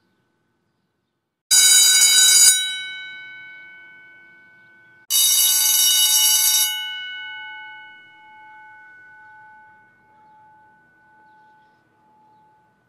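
School bell ringing for recess in two bursts, the first about a second long and the second about a second and a half, each cutting off sharply. The bell's tone then rings on and fades away with a slow wobble.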